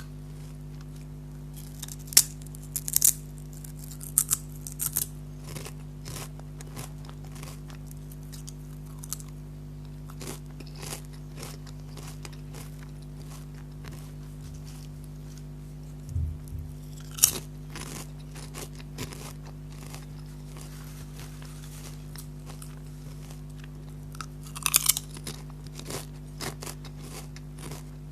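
Close-miked crunching and chewing of Lay's potato chips: sharp, crisp bites come in bursts, loudest a couple of seconds in, again about two-thirds through and near the end, over a steady low hum.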